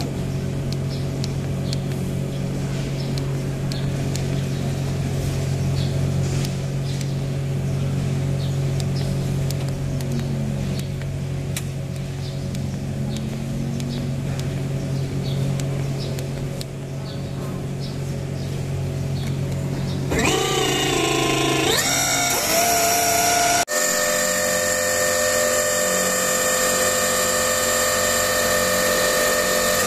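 Electric hydraulic pump motor of a Crown RR reach truck. A steady low hum runs for about twenty seconds, then the pump spins up in a quick rising whine and runs on steadily as the mast raises the forks during height calibration.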